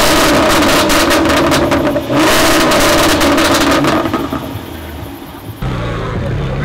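Jaguar F-Type R's supercharged 5.0-litre V8 revved hard twice through its exhaust, each rev held for about two seconds, then dropping back toward idle.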